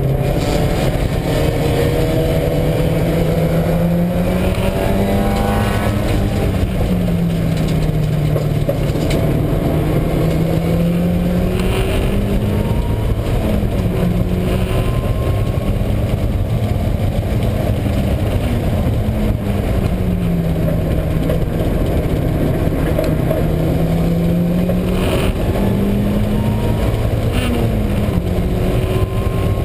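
Mazda Miata's four-cylinder engine running hard on track, its pitch rising and falling again and again through acceleration and lifts, over loud steady road noise. Mixed in is the noise of a failing wheel bearing, which the driver first took for a transmission or exhaust problem because it came mainly under engine braking.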